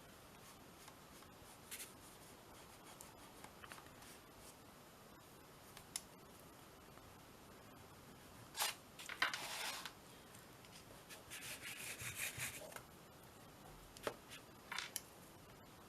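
Paintbrush scrubbing across collaged paper on a canvas: a few short spells of rubbing strokes in the middle, with light taps and clicks between them.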